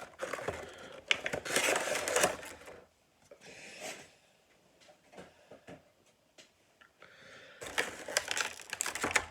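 Hands opening a bobblehead's cardboard box and packaging: bursts of scraping and rustling with small clicks, quieter for a few seconds in the middle.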